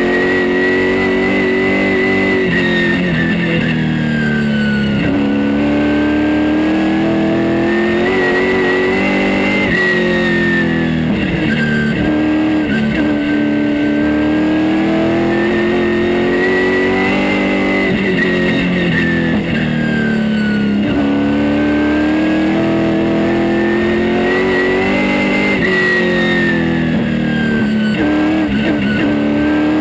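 Super late model race car's V8 engine heard from inside the cockpit at racing speed, its pitch rising and falling about every eight seconds as it pulls down each straightaway and comes off the throttle for the turns.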